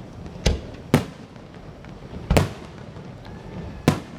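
Aerial fireworks bursting: four sharp bangs at uneven intervals.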